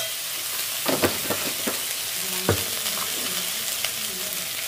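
Oil and spice paste sizzling in a metal kadhai, with a metal spatula stirring and scraping against the pan. A few sharp knocks of the spatula on the pan come between about one and two and a half seconds in.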